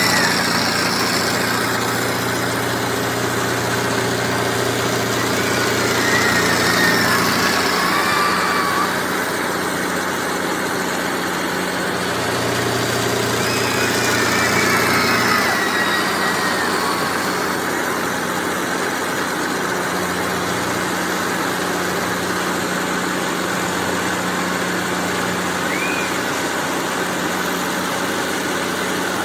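Steady hum and rumble of a spinning fairground ride's machinery running, with a few faint wavering high tones over it.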